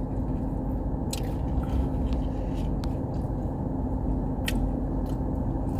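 A person chewing crunchy fried chicken nuggets close to the microphone, with a few short sharp clicks, over a steady low hum of a car cabin.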